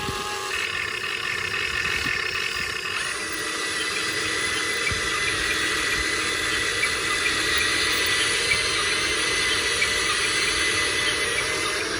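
Radio-controlled excavator's small electric motors whining steadily with a light rattle. The pitch settles into a thin steady whine about three seconds in.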